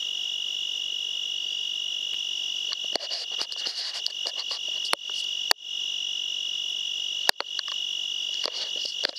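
Steady, high-pitched chorus of night insects, with irregular clicking and rustling starting about three seconds in and a few sharp clicks.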